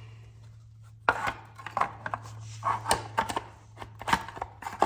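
Metal clicks, knocks and scraping as the cover plate over the Honda Rebel 1100 DCT's transmission oil filter is set in place and its bolts are fitted, starting about a second in and coming in irregular bursts, over a steady low hum.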